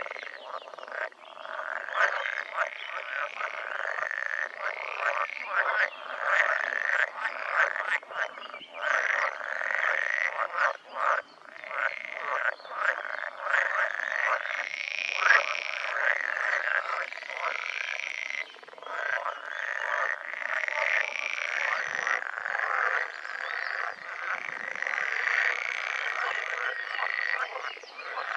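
A chorus of male pool frogs calling during the breeding season: many overlapping rapid, rattling croaks that run on without a break.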